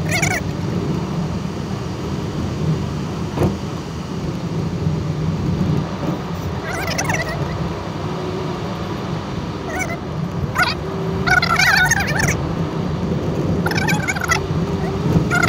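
Steady low drone of a car driving, heard from inside the cabin, with several brief high-pitched warbling sounds on top of it every few seconds.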